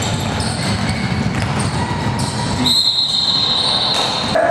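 Basketball game noise on a gym court, ball bouncing and play going on, then past the middle one long, steady, high blast of a referee's whistle that stops shortly before the end.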